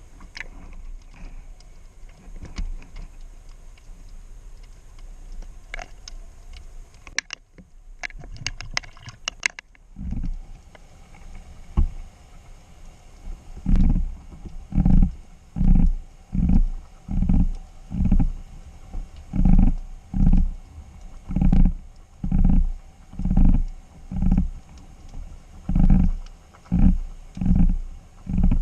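Underwater sound: scattered crackling clicks over a low rumble, then from about halfway a regular run of strong, muffled low pulses, a little more than one a second.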